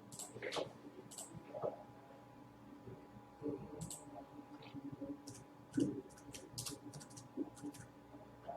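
A series of light, irregular clicks and taps, coming quicker and closer together in the second half, over a faint steady electrical hum.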